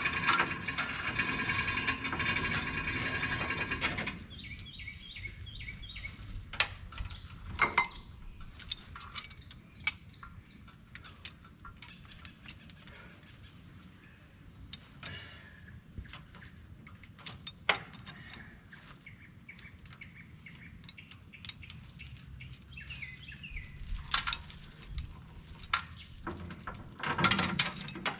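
A bird calls loudly for about four seconds at the start. After that come scattered clinks and clanks of steel 5/16 grade 70 binder chains being handled and hooked onto a log truck's frame, with a louder chain rattle near the end.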